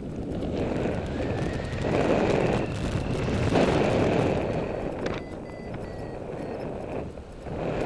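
Airflow rushing over the microphone of a paraglider in flight, swelling louder in the middle and easing off toward the end, with faint thin high tones in the background.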